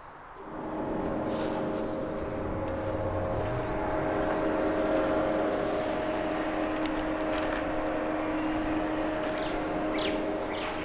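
2000 Renault Kangoo's 1.9-litre diesel engine idling steadily, starting about half a second in, with a few sharp clicks near the end.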